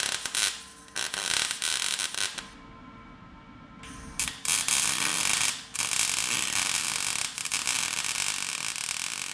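Wire-feed welder arc crackling and spitting as it welds steel frame parts. It runs for about two and a half seconds, pauses for about a second and a half, then starts again about four seconds in.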